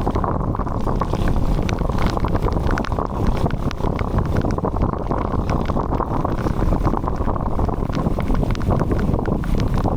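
Heavy rain falling: a loud, steady rush with many sharp drop ticks scattered through it.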